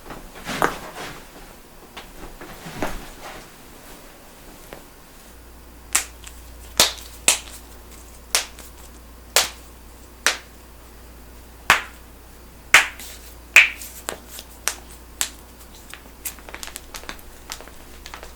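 Joints being cracked by hand: two duller, smeared cracks, then a run of about a dozen sharp single pops roughly a second apart, with a cluster of fainter clicks near the end.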